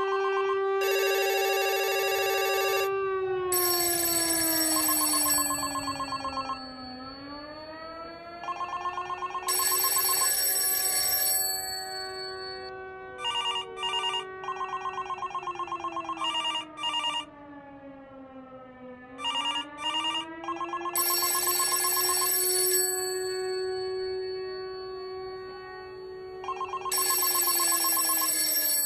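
Electronic soundtrack: a sustained synthesized tone that slowly sinks and rises again in pitch, broken every few seconds by bursts of rapid ringing trills like an alarm bell.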